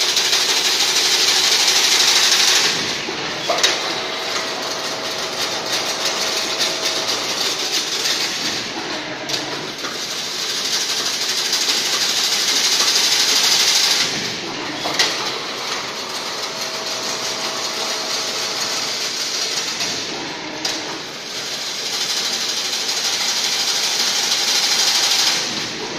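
Single-wire chain link fence weaving machine running through its work cycle. A few seconds of loud, steady hiss alternate with quieter running that carries a faint hum and is punctuated by sharp clacks, and the pattern repeats about every eleven to twelve seconds.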